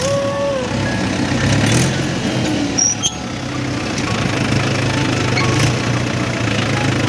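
Tractor engine running steadily under load while pulling a spring-tine cultivator through the soil.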